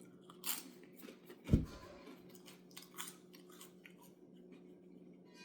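Someone biting and chewing crunchy toast close to the microphone: scattered crisp crunches, with one louder dull bump about a second and a half in, over a steady low hum.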